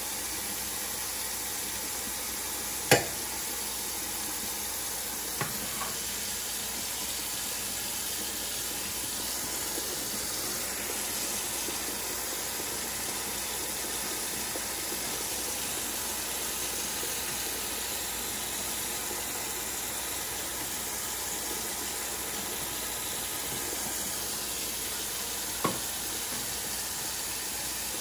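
Kitchen faucet running a steady stream of water into a stainless steel sink and onto a plastic cutting board. A sharp knock sounds about three seconds in, a smaller one a couple of seconds later, and another near the end.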